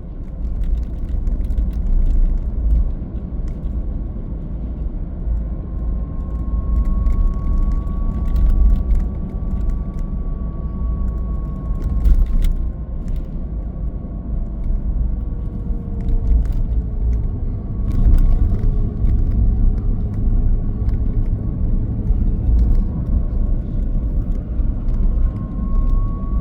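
Steady road noise inside a moving vehicle towing a car-hauler trailer: a heavy low rumble from engine and tyres, a faint whine that slowly drifts in pitch, and scattered small rattles.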